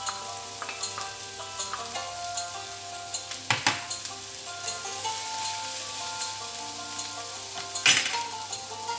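Sliced vegetables sizzling and crackling in a frying pan as they are stir-fried, with two sharp knocks about three and a half and eight seconds in.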